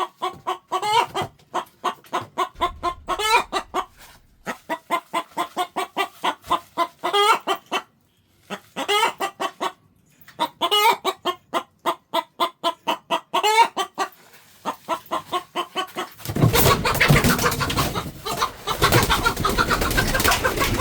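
Domestic chicken clucking in quick runs of short, repeated clucks, about five or six a second, with short pauses between runs. Near the end a louder, dense sound takes over.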